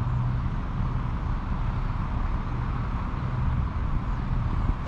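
Steady low engine drone over outdoor background noise.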